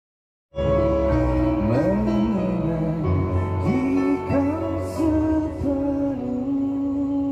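Live band music with a male lead singer over guitar and keyboards, starting abruptly about half a second in after silence.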